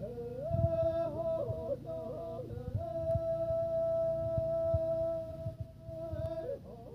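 Two men singing a Naga folk song together without accompaniment, their voices moving side by side in harmony, then holding one long note for a few seconds before breaking off near the end.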